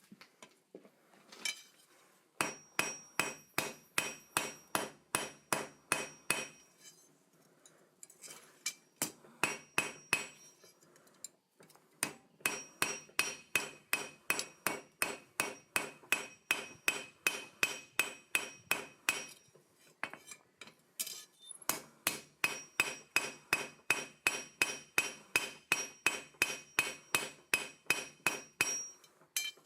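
Hand hammer striking steel on an anvil in steady forging blows, about three a second, each strike ringing metallically. The blows come in several runs with short pauses between them.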